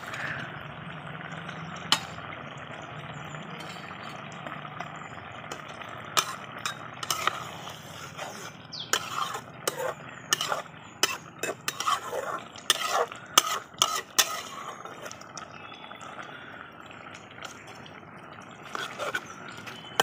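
A pot of curry simmering with a steady bubbling hiss, while a metal spatula stirs it, scraping and clinking against the aluminium pot. The knocks and scrapes come in a busy run from about six to fifteen seconds in and again near the end.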